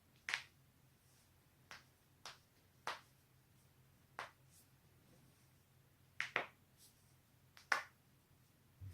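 Neck joints cracking as the neck is pulled hard: a string of about nine sharp pops at irregular intervals, some coming in quick pairs.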